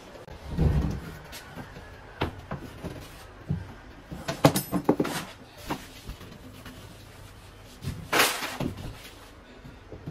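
A large drywall sheet being handled and manoeuvred through a doorway: a heavy thump about half a second in, scattered knocks and clatter as the board bumps the door and frame, and a loud scraping rush about eight seconds in.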